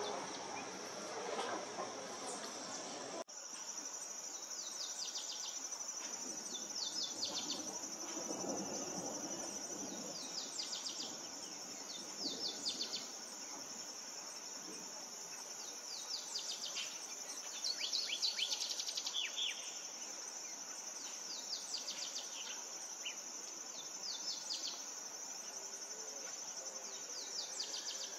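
Steady high-pitched drone of insects, with bird calls: clusters of short, high, quickly falling notes every second or two.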